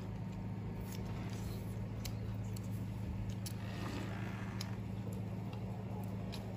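A steady low hum, with faint scattered clicks and small taps from people eating at the table.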